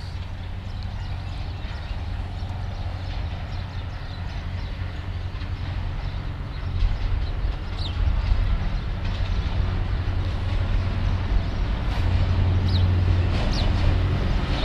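An approaching Pakistan Railways diesel locomotive hauling a passenger train: a deep, steady engine drone that grows gradually louder as the train draws near. A few short high chirps come through near the middle and near the end.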